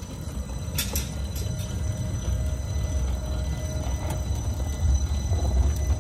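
Two-foot-gauge electric boxmotor car rolling past on its rebuilt AC-traction-motor truck: a low rumble of steel wheels on rail that grows louder as it nears, with a couple of sharp clicks about a second in.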